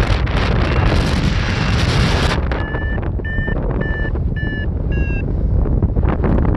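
Strong wind buffeting the microphone. About two and a half seconds in, it is joined by five short, evenly spaced electronic beeps, typical of a flight variometer signalling lift.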